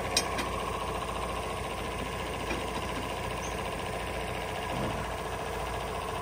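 Diesel semi-truck engine idling steadily, with a sharp click just after the start.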